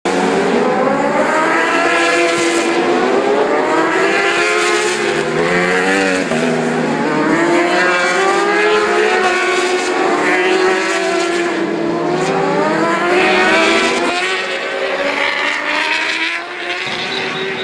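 Several World Superbike racing motorcycles passing at speed, their engines overlapping as they rev up and down through the gears in repeated rising and falling pitch sweeps. The sound eases off a little near the end as the bikes pull away.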